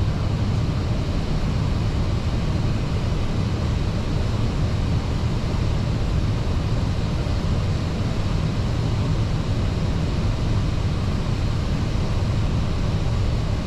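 Steady in-flight cockpit noise on an Airbus A320 flight deck: an even, mostly low-pitched hum that does not change.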